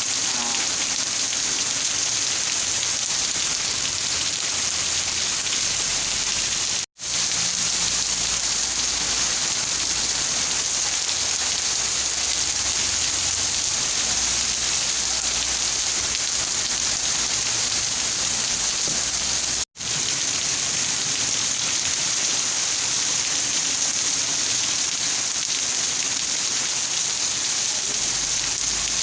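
Steady rain falling, an even hiss. It cuts out to silence for an instant twice, about seven seconds in and again near twenty seconds.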